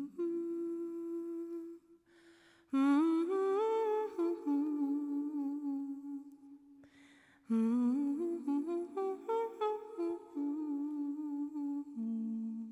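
A woman humming a slow, wordless melody into a microphone in three phrases. She holds one note, then steps up and down through the notes, with short pauses between the phrases.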